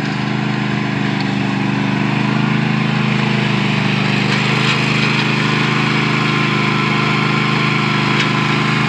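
Riding lawn mower's engine running steadily, getting a little louder over about the first second and then holding.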